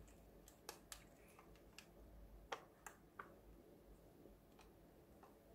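Near silence with faint, irregular clicks and taps as a Victor CQ-1 portable cassette player is handled and turned over in the hands.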